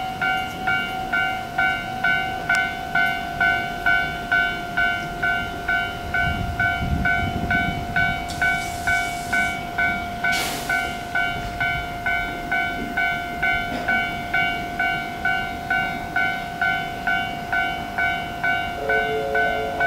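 An electronic warning bell dings steadily about twice a second while a 115 series electric train runs slowly into the station. The train's low rumble builds midway, and two short hisses of air follow.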